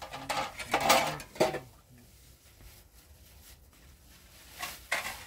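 Clinks and clatters of hard objects being handled, in two bursts: a cluster of sharp knocks in the first second and a half, and another near the end.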